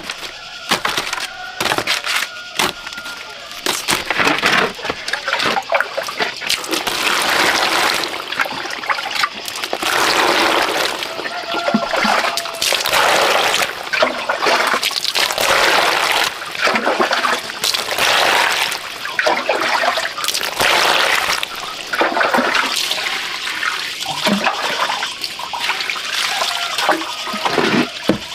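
Water splashing and sloshing in a plastic basin in uneven surges as a batch of leaf-wrapped cakes is rinsed.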